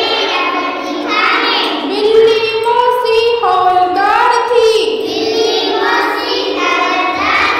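Children singing a Hindi nursery rhyme, with held notes and short pitch glides between phrases.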